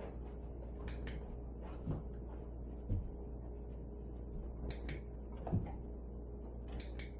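A dog-training clicker clicked three times, each a quick double click, marking the dog's touches on the Swiffer during a shaping session. A dull thud comes about three seconds in, over a steady low hum.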